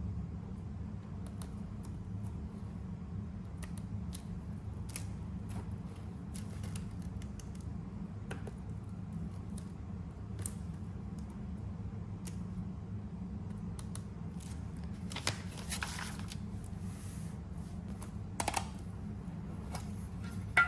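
Scissors cutting paper in short, scattered snips and clicks while journaling materials are handled, with a longer rustling cut about fifteen seconds in. A steady low hum runs underneath.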